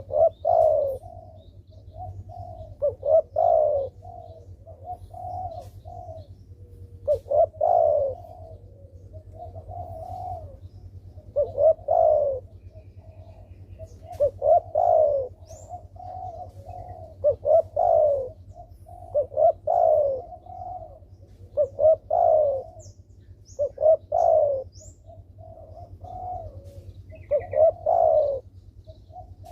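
A spotted dove cooing over and over, a loud coo phrase about every two seconds with softer notes between, the repeated song of a frequently calling (gacor) dove. A steady low hum runs underneath, and a few faint high chirps of a small bird come in the second half.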